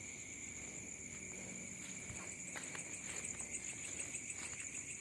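Crickets and other night insects chirring steadily at two pitches, one very high and one lower, with a few faint clicks in the second half.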